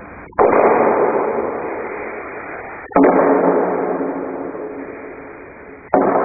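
Wooden practice swords (bokken) clacking together three times, about three seconds apart, each strike ringing on in a large hall's echo and fading over a couple of seconds.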